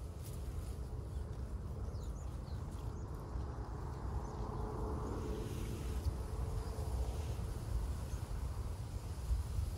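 Wind buffeting the microphone as a fluctuating low rumble, with a faint steady hum from about two seconds in until past seven seconds.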